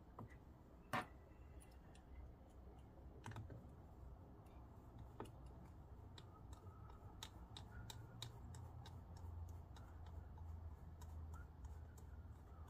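Faint clicks and ticks of a small screwdriver and screws being driven back into a laptop's bottom panel, with one sharper click about a second in and a run of quick ticks in the second half.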